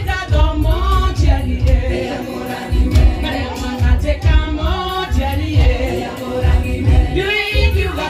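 A group of women singing a lively song, with one voice through a microphone, over a pulsing bass beat.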